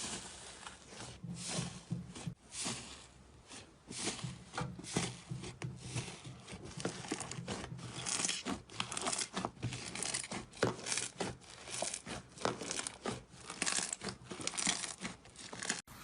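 Close-up crisp crackling and scraping, many short strokes in quick succession, as of a dry, crunchy material being cut or crushed; the strokes come thicker and brighter about halfway through.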